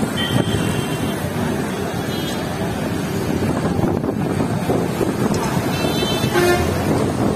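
Busy street traffic: auto-rickshaws, motorbikes and cars running past, with wind buffeting the microphone. A few short high horn beeps sound over it, one just after the start, one a little after two seconds and one around six seconds in.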